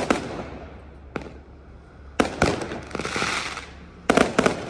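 Aerial fireworks going off: clusters of sharp bangs as shells burst, the later ones trailed by a crackling hiss.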